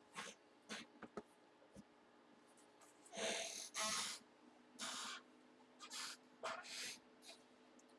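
Faint swishing and rustling as trading cards and their packaging are handled and slid about, in a string of short strokes with the two loudest about three to four seconds in, over a steady low electrical hum.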